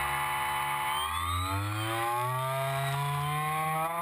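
Electric RC floatplane's brushless outrunner motor and 11x5.5 propeller running with a steady whine, its pitch rising from about a second in as the throttle opens for the takeoff run on the water.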